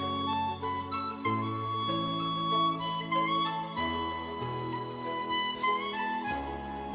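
Background music: an instrumental passage of a sung pop ballad, a held melody line over sustained bass notes that change every second or two.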